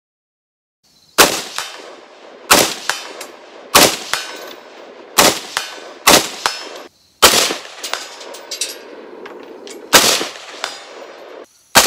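Davidson Defense Journeyman AR-15 rifle fired in single shots at a steady pace: eight shots, starting about a second in, with a longer pause before the last two, each shot ringing out briefly after the crack.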